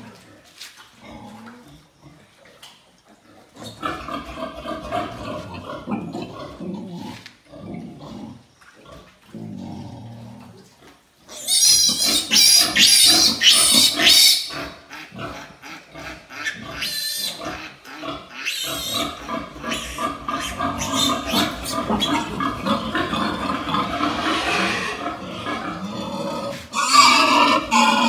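Newborn piglet squealing and screaming while it is caught and held for its iron injection. The cries start a few seconds in, are loudest and shrillest about halfway through, carry on unevenly, and grow loud again near the end.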